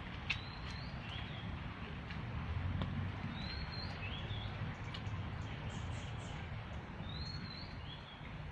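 A bird repeating a short two-note whistled phrase three times, a rising high note followed by a lower one, over a steady low outdoor rumble.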